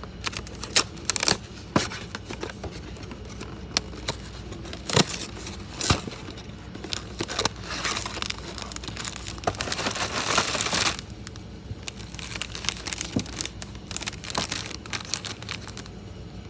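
A small plastic snack pouch of mini butter cookies being handled and torn open: repeated sharp crinkles and crackles, with a longer stretch of continuous rustling about eight to eleven seconds in.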